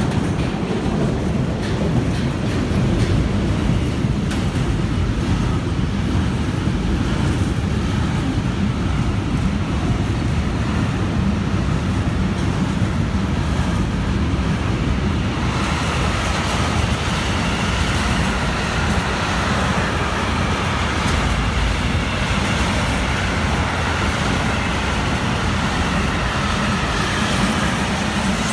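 Long intermodal freight train of curtain-sided trailers on low wagons rolling past, a steady rumble of wheels on rail. A brighter hiss joins about halfway through.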